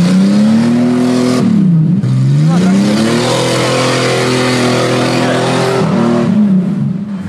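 Off-road 4x4's engine revving hard in mud. The revs climb, drop briefly about two seconds in, then climb again and are held high with a rushing noise for a few seconds before falling away near the end.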